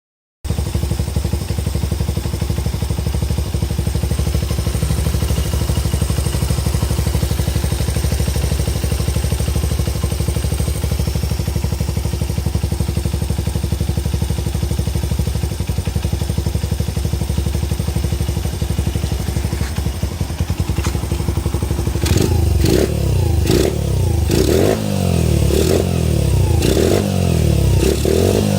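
Honda Ape's single-cylinder four-stroke engine idling steadily, then blipped repeatedly with quick revs rising and falling from about 22 seconds on. The engine has been freshly rebuilt with a new crank, cylinder, piston and transmission bearings, and it runs with its normal mechanical sound, the earlier abnormal noise gone.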